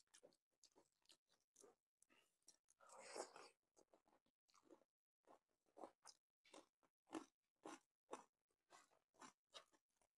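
Faint close-miked eating sounds: a person chewing food with crunchy bites. There is a longer crunch about three seconds in, then steady chewing strokes about twice a second.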